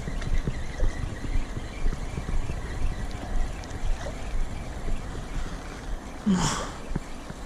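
Water lapping and wind noise on the microphone at the shoreline, with a brief swish about six and a half seconds in.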